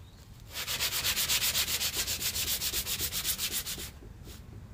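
Hand sanding of a Mitsubishi Lancer's painted roof edge: quick back-and-forth scraping strokes, about seven or eight a second, starting about half a second in and stopping near the end with one last short stroke. The sanding scuffs off flaking, faded paint so that the new spray paint will hold.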